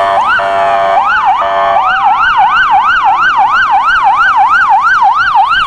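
Toy police car's electronic siren, going up and down slowly at first and then switching, about two seconds in, to a fast yelp of roughly four rises and falls a second.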